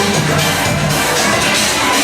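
Loud electronic dance music with a steady bass line playing over crowd noise.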